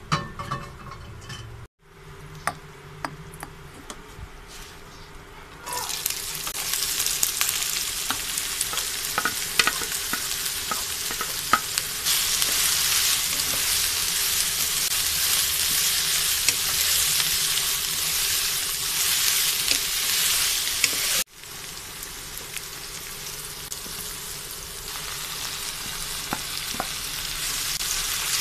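Sliced onions sizzling as they fry in oil in a non-stick wok, stirred with a wooden spatula, with scattered clicks of the spatula against the pan. The sizzle grows louder about six seconds in, then breaks off and comes back quieter about two-thirds of the way through.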